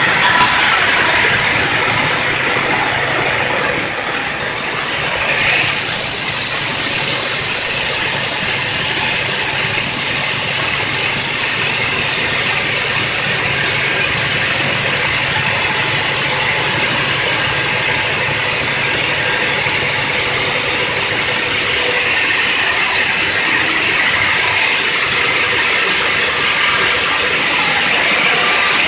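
Stone bridge saw's large circular blade cutting through a stone block: a loud, steady grinding hiss over the hum of the machine. A brighter, higher hiss comes in about five seconds in and holds.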